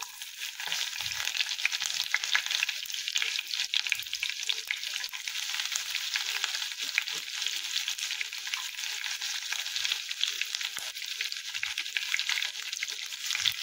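Chopped garlic frying in hot refined oil in a kadai: a steady sizzling hiss with many small crackling pops.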